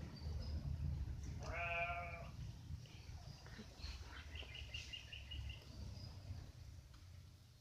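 A lamb bleats once, a short call about a second and a half in, over a low rumble. A quick run of high, evenly spaced chirps follows near the middle.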